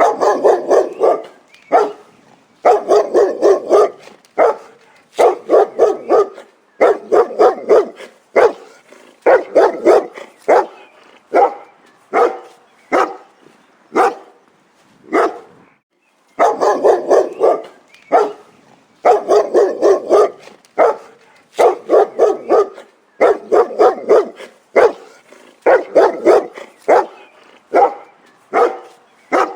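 A dog barking in repeated volleys of quick, loud barks, each volley a second or two long with short pauses between. There is a brief break about halfway through.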